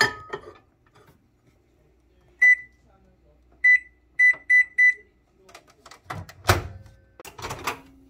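Microwave oven being loaded and started: a ceramic bowl clinks onto the turntable, then five short keypad beeps sound, one, another, then three in quick succession, as the cooking time is entered. Clunks of the door shutting and the oven starting follow, and the low hum of the running oven begins near the end.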